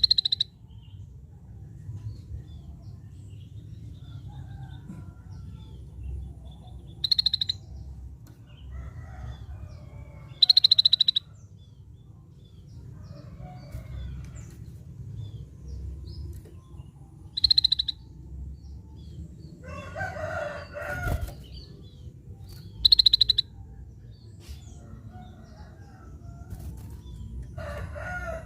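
Scaly-breasted bulbul (cucak bersisik) giving five short, high, rattling calls, each about half a second long and a few seconds apart. A longer, lower call is heard about twenty seconds in, and another near the end.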